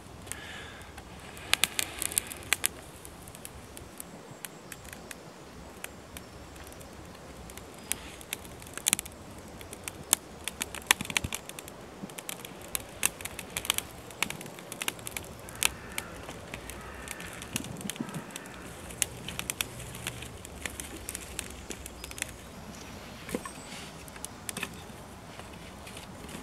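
Small wood fire of kindling and thin twigs crackling, with sharp snaps and pops scattered irregularly throughout: a fire just catching from a tinder bundle.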